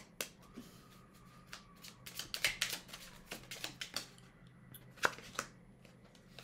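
A deck of oracle cards being shuffled by hand: irregular soft flicks and taps of the cards sliding and striking, busiest about two to three seconds in, with a sharper snap about five seconds in.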